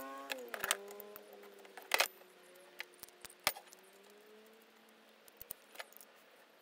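Light metallic clinks and taps of an open-end wrench and steel hydraulic fittings as a hose is joined to a quick coupler, scattered and irregular, with the loudest clink about two seconds in. A faint pitched hum fades away over the first few seconds.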